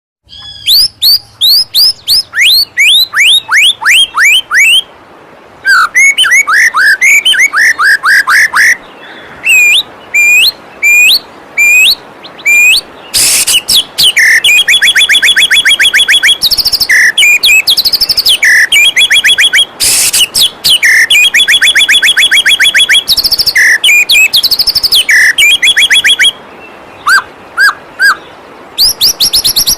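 White-rumped shama (murai batu) singing loud whistled phrases: runs of repeated down-sweeping notes, fast rattling trills and upward-hooked notes, with short pauses between phrases. A steady rush of flowing waterfall water runs underneath.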